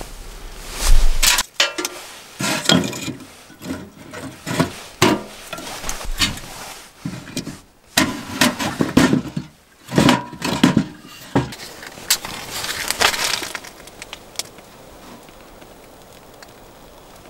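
Split firewood knocking and clattering against other pieces and against the steel firebox of a small wood stove as it is stacked inside, in irregular bursts of knocks. The clatter stops shortly before the end.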